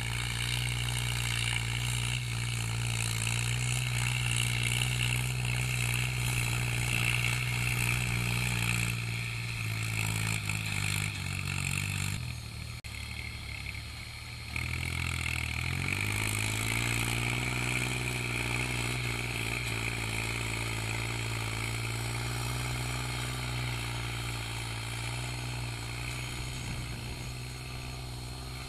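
Kubota L3608 tractor's three-cylinder diesel engine running steadily under load while pulling a disc harrow. About halfway the sound breaks off, the engine note dips low and then climbs back up to a steady run.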